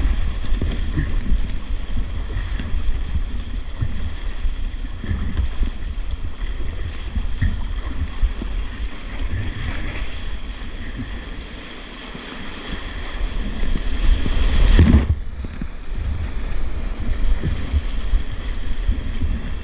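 Whitewater rapid rushing around a kayak, heard close up from the paddler's camera, with low buffeting on the microphone and paddle splashes. About fifteen seconds in, a loud splash hits the camera and the sound goes muffled for a moment.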